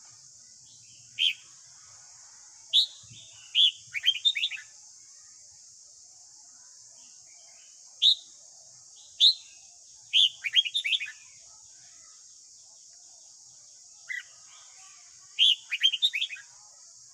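Red-whiskered bulbul singing in three bouts a few seconds apart. Each bout is a few separate clear whistled notes, then a quick run of falling notes. A steady high hiss runs underneath.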